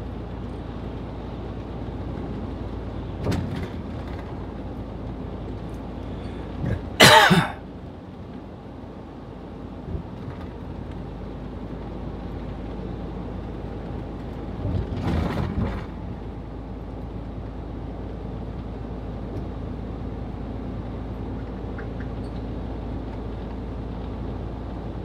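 Mercedes-Benz Actros truck's diesel engine running steadily, heard from inside the cab. A short, loud sharp noise breaks in about 7 seconds in, with a second, longer burst around 15 seconds in.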